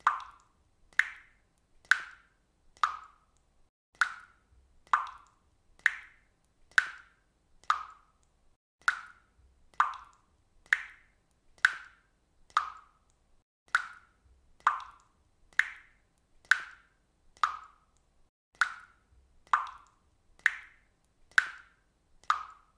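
Water dripping from a faucet, one drop about every second in a steady, even rhythm; each drop lands with a short, bright plop.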